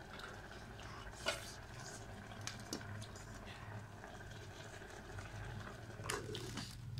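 Spoons and containers clinking and scraping against stainless-steel bowls and a steel pot during a meal, with a louder metallic clatter about six seconds in as the pot's lid is handled. A steady low hum runs underneath.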